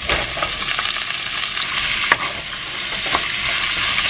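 Pork rib pieces sizzling as they stir-fry in a nonstick frying pan, turned with a wooden spatula, with two short knocks of the spatula against the pan.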